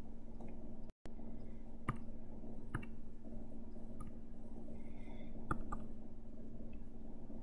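Computer mouse clicking: about five single sharp clicks, spaced a second or so apart, over a steady low hum. The sound cuts out completely for an instant about a second in.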